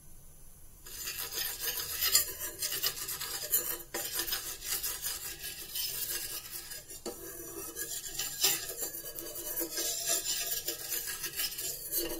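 A steel spoon scraping and rubbing across a hot iron tawa, spreading oil over the griddle, starting about a second in as a run of uneven scratchy strokes.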